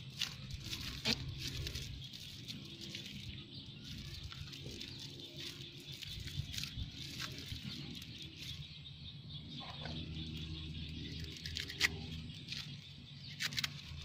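Faint background music, with short crackles and rustles of a plastic strap being pulled tight and knotted around a coir-wrapped papaya branch.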